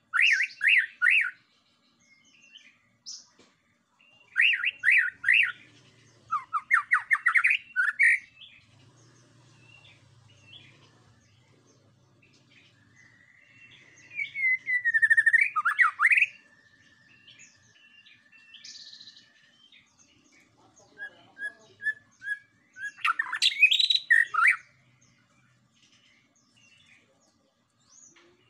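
White-rumped shama (murai batu) singing loud bursts of rapid, rich warbled phrases, a few seconds apart. One thin level whistle is held for several seconds through the middle.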